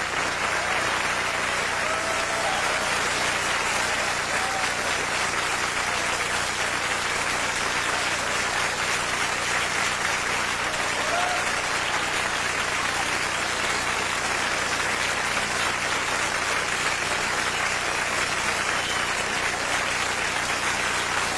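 Concert audience applauding and cheering steadily, with a few faint whistles, over a low steady hum.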